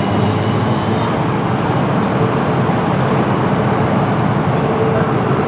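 Steady loud engine rumble mixed with wind noise, with a faint humming tone that grows a little near the end.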